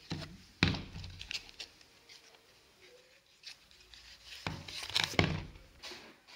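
Paperboard sleeve and green moulded pulp tray of a Kinder Joy two-pack being handled on a wooden table: rubbing and sliding, with sharp knocks and scrapes about half a second in and a cluster of them near five seconds as the sleeve is slid off.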